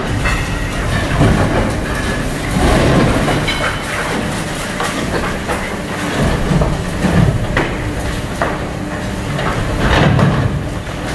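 Excavator-mounted hydraulic concrete crusher jaws chewing through a reinforced concrete slab, with a steady run of cracking and crunching over the excavator's running engine.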